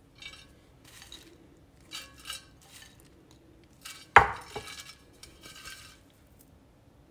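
Sliced almonds dropped by hand into a buttered metal bundt pan, landing in a few light scattered clatters. About four seconds in, one sharp metallic knock from the pan as it is handled, ringing briefly.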